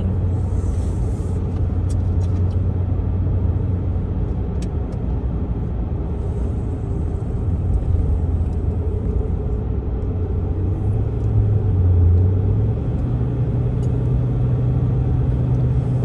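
Steady engine and road noise inside a moving car, with a low hum that rises a little in pitch about two-thirds of the way through.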